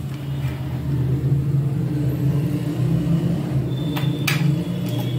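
Steady low mechanical hum made up of a few fixed low tones, with two light clicks about four seconds in.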